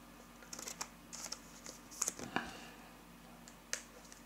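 Faint rustling and a few light clicks of trading cards being handled, scattered through the first half with one more click near the end.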